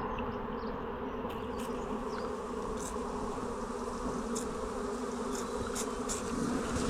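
Honey bee swarm buzzing: a steady, even hum of many bees, with a few brief high ticks or hisses over it.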